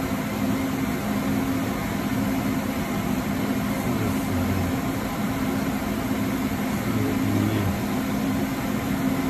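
An electric motor run by a Yaskawa CIMR-VMW2015 inverter during a repair test, giving a steady hum. A low tone in it breaks off and returns every second or so.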